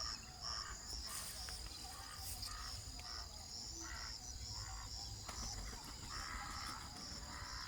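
A steady, pulsing insect chorus, with a bird giving a long series of short harsh calls, several a second apart.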